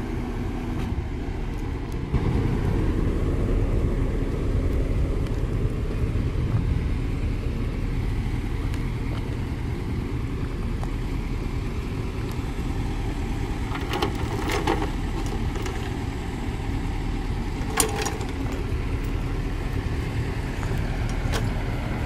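Heavy diesel engine of a Kobelco SK200 excavator running steadily, getting louder about two seconds in, with a few short sharp knocks later on.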